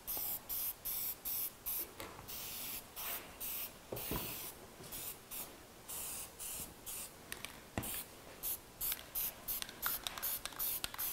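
Aerosol spray can of white lacquer spraying in many short bursts, a quick hiss each time the nozzle is pressed, with the bursts coming shorter and faster near the end.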